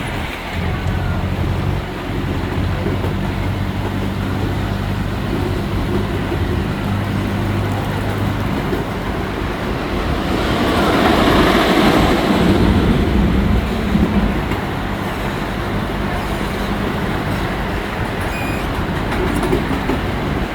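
Miniature park train running along its track, heard from a seat up front: a steady rumble of wheels on rail under a low hum, swelling into a louder rush of noise for a few seconds around the middle.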